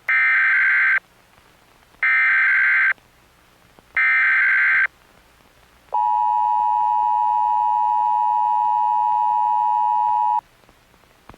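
Emergency Alert System SAME header: three one-second bursts of screechy digital data tones, about a second apart. These are followed by the steady two-tone EAS attention signal, held for about four and a half seconds and then cut off. Together they announce an emergency alert broadcast.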